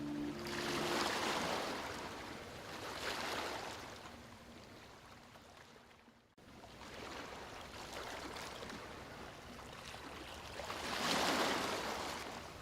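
Sea waves washing in and drawing back, each wash swelling and fading over a couple of seconds. The sound dies away almost completely about six seconds in, then builds again to a larger wave near the end.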